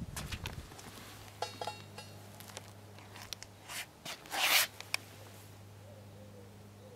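Rubbing and rustling handling noise with scattered light clicks, loudest in a short burst about four and a half seconds in, over a faint steady low hum.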